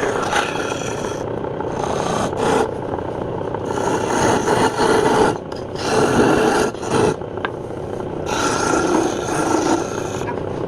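Wood lathe running while a tool scrapes against the spinning wood, in repeated louder passes of a second or so over the steady hum of the machine.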